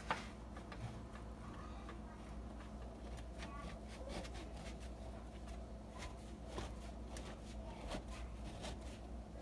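Faint scraping of a plain-edged chef's knife sawing back and forth through a frozen loaf of French bread, with scattered small clicks. It is slow, hard going: the knife lacks a serrated edge to bite the frozen bread.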